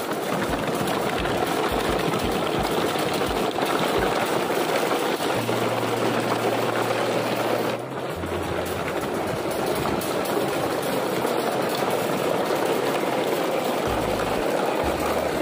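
Plastic toy truck wheels rolling and rattling over gravelly dirt as a long train of toy vehicles is towed on a string, a steady grinding clatter.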